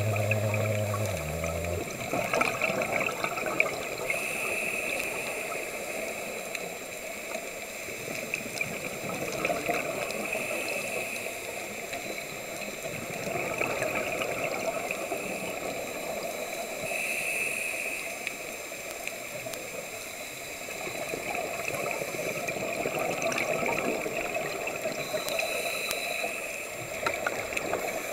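Underwater sound of a scuba diver breathing through a regulator. A hissing inhale and a bubbling exhale alternate slowly, one cycle about every six to seven seconds, with scattered faint clicks.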